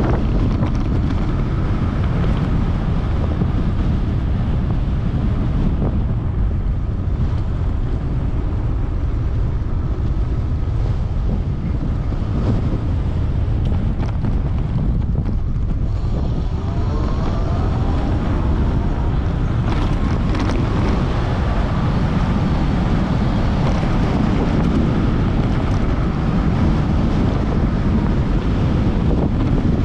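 Wind rushing over the microphone on a moving 3000 W electric bike, loud and steady. Just past the middle a faint whine rises in pitch.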